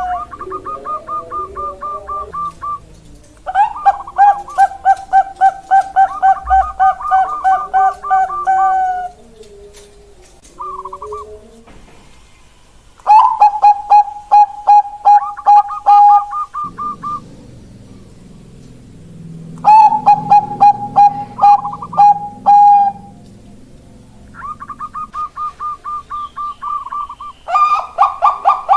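Bangkok-type zebra dove (perkutut bangkok) cooing: long runs of quick, evenly repeated staccato notes, about three a second, coming in bouts of several seconds with short pauses between them.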